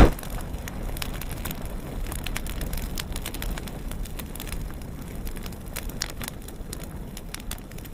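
Fire crackling sound effect: irregular sharp crackles and pops over a low rumble, opening on the tail of a loud hit.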